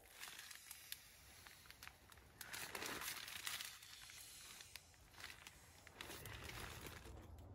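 Nylon tent fabric and camping gear rustling and crinkling as they are handled inside a tent, in a few bouts of about a second each.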